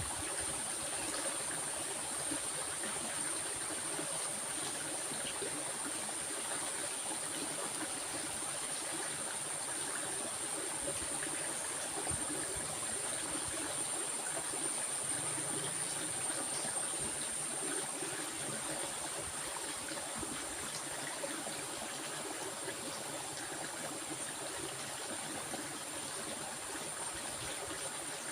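Stream water flowing steadily, an even babbling rush with no breaks. A steady high-pitched whine sits above it throughout.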